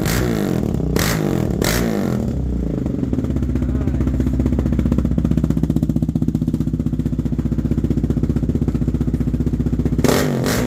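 2022 Yamaha Raptor 700R's single-cylinder engine running through an aftermarket exhaust: a couple of quick throttle blips, then a steady, rhythmic idle, then revved again near the end.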